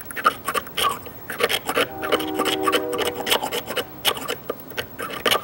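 Blade of a Swiss Army knife scraping old construction adhesive and rust off the steel of a carpenter's chisel, in a rapid run of short, gritty scraping strokes.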